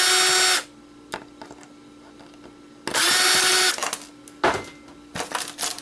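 Cordless drill-driver running in two short bursts of steady motor whine, about three seconds apart, backing out the screws that hold a small circuit board. Sharp clicks and rattles of parts being handled follow near the end.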